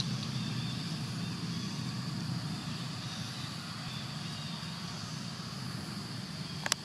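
Steady outdoor background: a low rumble, like distant engine traffic, under a thin high steady whine. A single short sharp click comes near the end.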